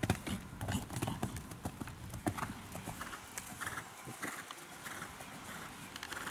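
A horse's hooves striking the sand footing of a riding arena as it jumps and canters, a steady beat of hoofbeats. From about halfway, a rhythmic blowing comes in time with the strides.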